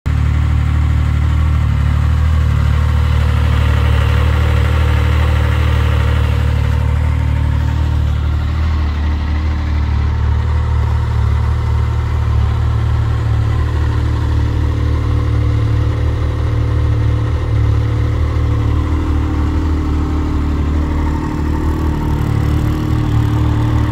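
2008 Yamaha Nytro M-TX snowmobile's fuel-injected 1049 cc Genesis four-stroke triple idling steadily.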